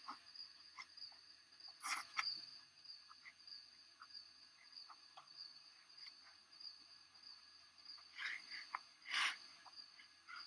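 Crickets chirping steadily in a quiet night, with a few brief soft scuffing sounds about two seconds in and again near the end.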